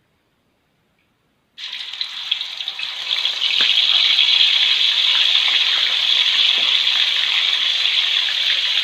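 Snail meat sizzling in hot oil in a pan: a loud, steady frying sizzle that starts suddenly about a second and a half in and builds over the next second or two.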